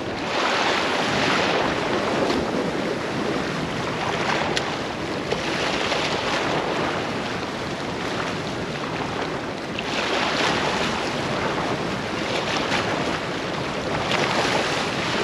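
Small sea waves washing and splashing over a rocky shore ledge, surging louder every few seconds.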